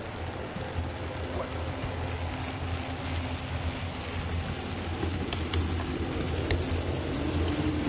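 Model train rolling along the layout track as it approaches, a steady rolling rumble that grows louder toward the end, over a steady low hum.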